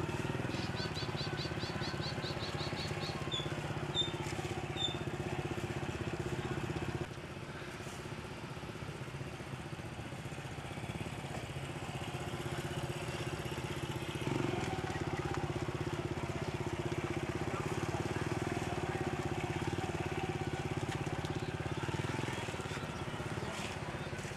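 Small step-through motorbike engine running steadily at low speed as the bike creeps along. It gets quieter about seven seconds in.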